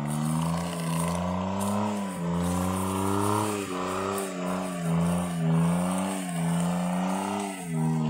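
Suzuki Jimny engine revving hard as the 4x4 works through deep mud ruts. The pitch rises and dips over and over with the throttle, in about half a dozen surges.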